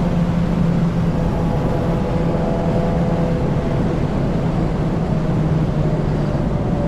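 A 2024 Subaru WRX's turbocharged 2.4-litre flat-four pulling on track at part throttle, engine note holding a fairly steady pitch under heavy road and wind noise.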